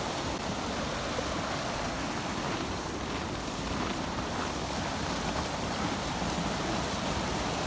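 Steady rush of a waterfall, water running over rocks between the ice.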